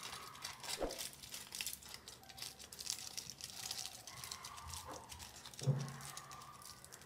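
Foil chocolate wrapper crinkling as it is folded and twisted around a chocolate by hand. The crackling is densest in the first four seconds, and a soft thump comes about five and a half seconds in.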